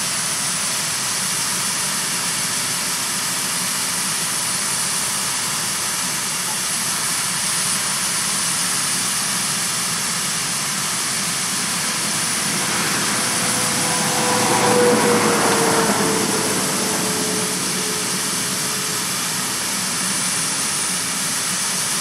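Grain cart auger unloading corn into a Richiger grain bagger, with the tractors' engines running steadily. About midway the noise swells and a whine comes in, then slowly falls a little in pitch and fades.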